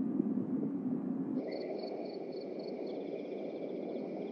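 A low murmur gives way about a second and a half in to a soft outdoor wash with a run of high chirps, about four a second, followed from about three seconds in by a fast, high trill of small animal calls.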